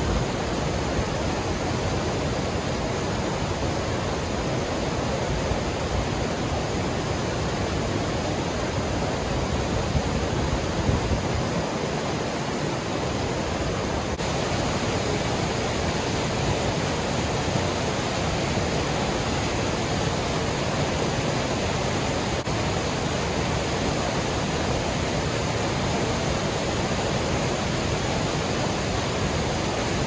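Fast, swollen creek rushing in churning white water: a steady, even rushing noise.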